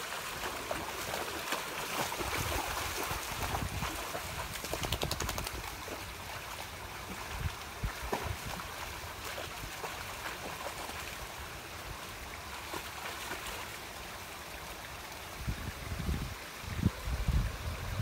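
Shallow creek water running and trickling, with low rumbling bumps near the end.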